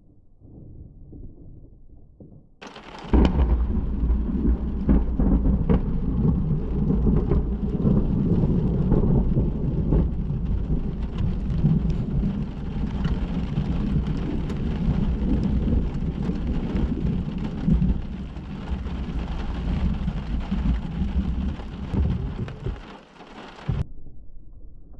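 Thunder from a very powerful positive cloud-to-ground lightning strike: a sudden loud crack about three seconds after the flash, then a long, deep rumble lasting some twenty seconds before it cuts off suddenly near the end. Rain falls throughout.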